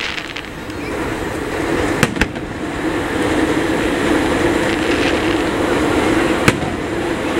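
Aerial firework shells bursting: two sharp bangs close together about two seconds in and another near the end. Under them runs a steady rumbling noise that swells over the first few seconds.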